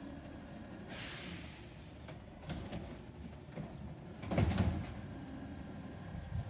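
Garbage truck with an automated side arm working down the street: its engine runs steadily, a sharp hiss of air comes about a second in, then a loud cluster of clanks about four seconds in as the arm shakes a raised wheelie bin empty over the hopper.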